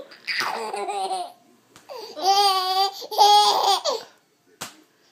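Baby laughing in two high-pitched fits: a short one just after the start and a longer, louder one from about two to four seconds in. A brief sharp click follows near the end.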